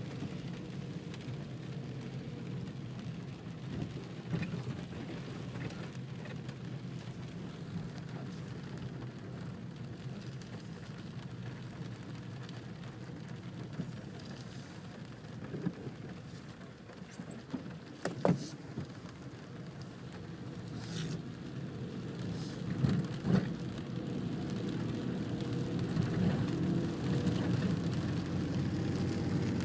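Rain falling on a car's windshield and roof, heard from inside the cabin over the steady low hum of the car in slow traffic. A few sharp taps sound in the second half, and the whole grows louder near the end.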